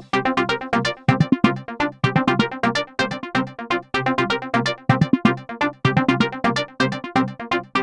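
Electronic music: a fast, repeating run of short synthesizer keyboard notes with a steady pulse.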